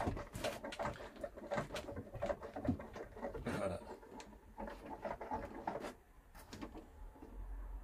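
Irregular clicks, taps and rattles of an Absima Sherpa RC rock crawler's hard plastic body and chassis being handled.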